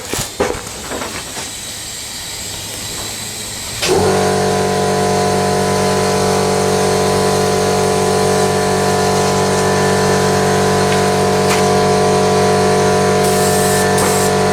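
An air compressor motor cuts in suddenly about four seconds in and runs with a steady hum. Before it starts there are a few clicks and a steady hiss of air. Near the end there are two short high hisses of air.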